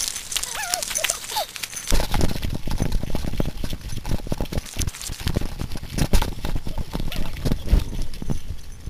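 Scuffling dog paws and running footsteps crunching on a gravel path, with rough handling knocks on the camera microphone. A few short high gliding sounds come in the first second or so; the clattering steps get denser from about two seconds in.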